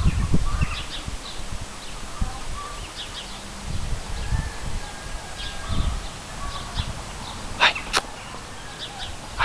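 Outdoor ambience: small birds chirping here and there over an uneven low rumble. Two short, sharp noises come close together near the end.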